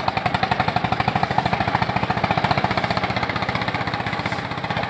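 Old tractor engines idling in a steady, fast putter of about ten beats a second.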